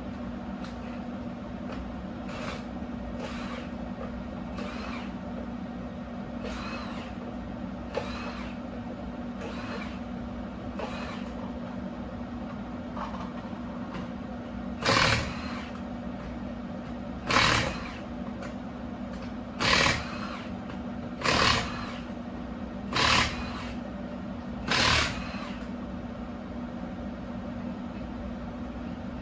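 Impact wrench running on wheel lug nuts in short half-second bursts: a run of fainter bursts, then six louder ones about two seconds apart. A steady hum carries on underneath.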